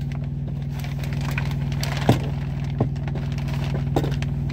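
A few sharp knocks and clicks as a shower curtain rod is fitted up between the cabinets, three in all, over a steady low hum.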